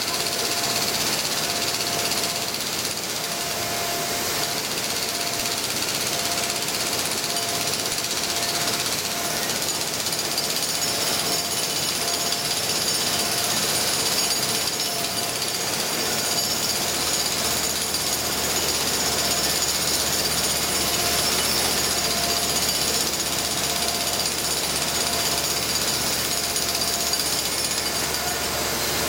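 Jackhammer running steadily on concrete, without a break.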